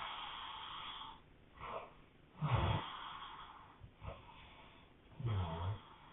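A person snoring hard: a run of raspy, irregular breaths, with louder, deeper snores about two and a half seconds in and again near the end.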